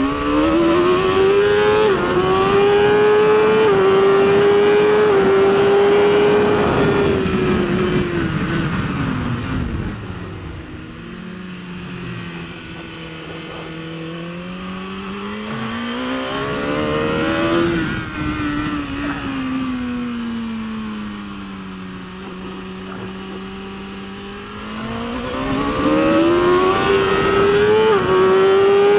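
BMW S1000RR inline-four superbike engine at full race pace: it revs up through the gears with quick upshifts in the first few seconds, drops away under braking and downshifts, runs lower through the corners while pitch rises and falls with the throttle, then pulls hard again with another run of upshifts near the end.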